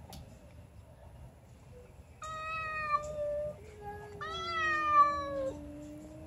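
Two domestic cats yowling at each other in a standoff. Two higher, drawn-out yowls come about two and about four seconds in, over a second, lower yowl that starts about halfway through and slides slowly down in pitch.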